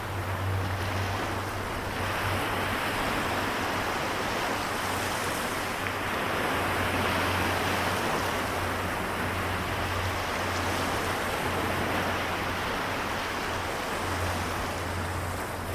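Small waves of the Seto Inland Sea washing and lapping on the shore in a continuous, even wash that swells a little midway. A steady low rumble runs underneath and drops out now and then.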